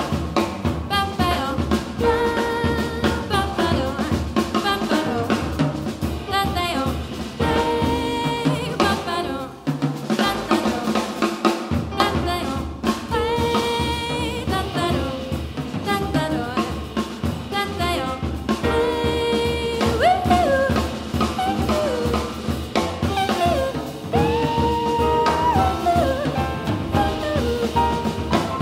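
Live jazz band playing: a woman singing long held and gliding notes over busy drum kit, with double bass and piano beneath. The bass drops out for a couple of seconds about ten seconds in.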